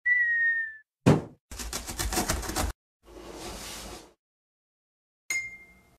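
Cartoon sound effects: a short high tone that dips slightly in pitch, a sharp knock, about a second of fast rattling, a hiss of about a second, then a bright ding that rings out and fades.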